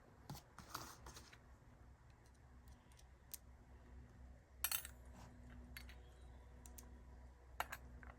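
Faint scattered clicks and light metal taps of disc-brake rotor bolts and a tool being handled as the bolts are threaded into a hub motor, the loudest about four and a half seconds in, over a low steady hum.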